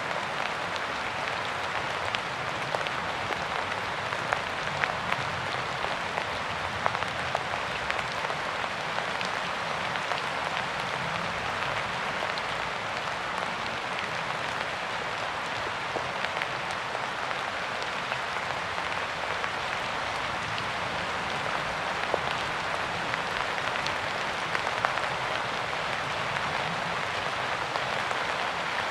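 Steady rain falling, an even hiss with many scattered individual drop ticks.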